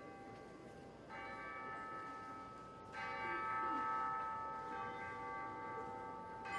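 Tubular bells struck slowly, three strokes about two seconds apart, each left to ring on, the loudest about three seconds in: the quiet opening of an orchestral piece.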